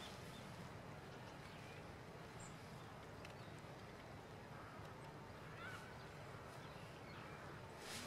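Quiet outdoor background hiss with a couple of faint, brief distant bird chirps.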